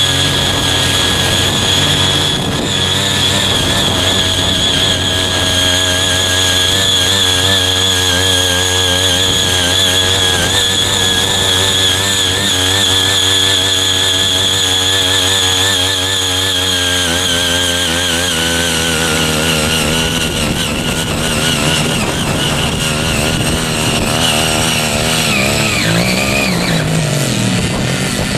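Small engine of a CY50 mini cultivator running hard under load as its rotary tines dig deep into soil, with a steady high whine over the engine note. The pitch wavers and dips several times near the end as the load on the tines changes.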